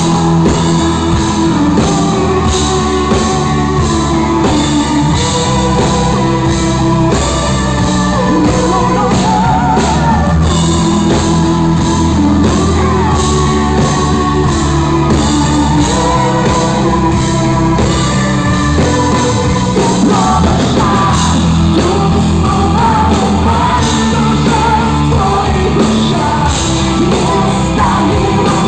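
Live rock band playing loudly with a female lead singer, drums, bass and guitar under her vocal line.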